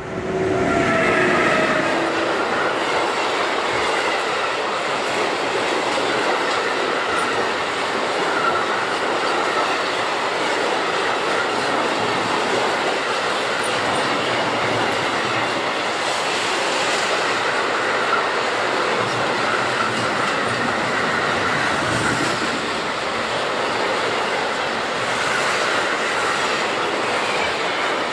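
Long freight train of empty two-level car-transport wagons rolling past at speed: a steady loud rumble of wheels with clickety-clack over the rail joints and a thin squealing ring from the wheels at times. The sound rises quickly as the train arrives.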